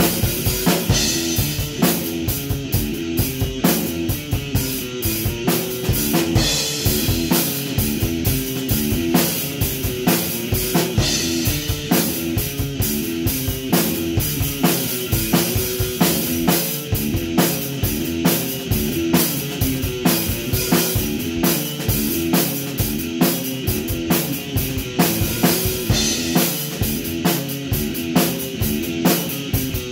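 Electric guitar playing a repeating rock riff over a steady drum-kit beat, with kick drum, snare and cymbals.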